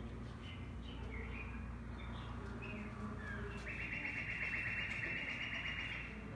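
Bird calls: short chirps sliding down in pitch, then a rapid trill that runs for about two seconds in the second half, over a steady low hum. The birds on display are mounted specimens, so the calls come from a recorded soundtrack playing in the bird exhibit.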